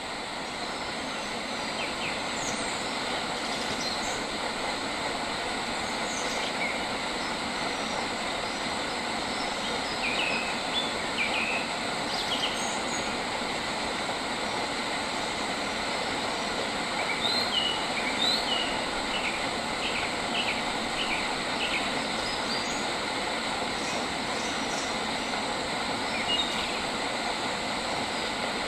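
Birds chirping in short, high calls that come in clusters, a third of the way in, about two-thirds of the way in and near the end, over a steady rushing noise.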